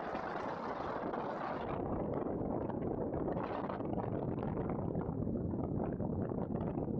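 Wind blowing across the camera microphone: a steady rush that flickers with small gusts.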